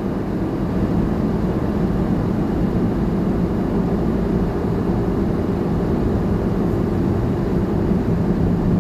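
A 4x4 driving at a steady cruising speed of about 83 km/h: a constant drone of engine and road noise with a low hum.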